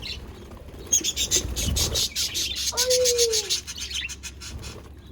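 Budgerigars chirping and chattering in a rapid stream of short, high chirps. About three seconds in there is a lower, drawn-out note that slides downward.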